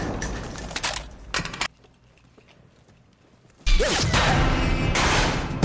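Film shootout sound effects: a few sharp shot-like cracks as the noise fades, then about two seconds of near silence, then a sudden loud blast with a deep rumble that carries on.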